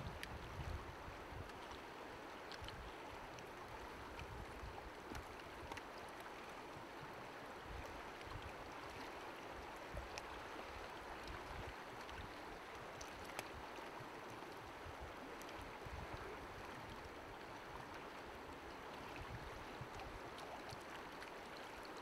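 Steady rush of a fast, shallow river flowing over a stony bed, with a few faint clicks.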